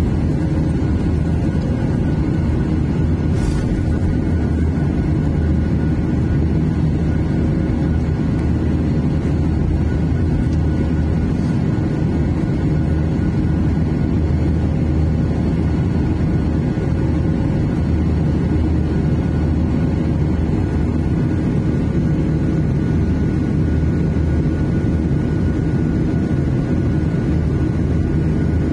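Steady cabin drone of a Boeing 737-800 climbing after takeoff, heard from inside the passenger cabin: a deep rumble from the CFM56-7B turbofan engines and rushing airflow, with faint steady tones above it.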